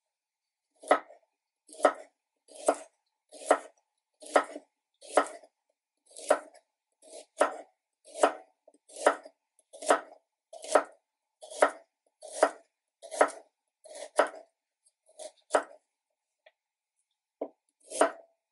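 Large kitchen knife slicing raw carrots into rounds on a wooden cutting board: short, sharp cuts about once a second, with a short pause near the end before two more.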